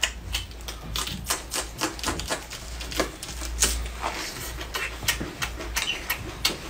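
Close-miked eating: a person chewing food, a quick irregular run of crisp crunches and clicks, several a second.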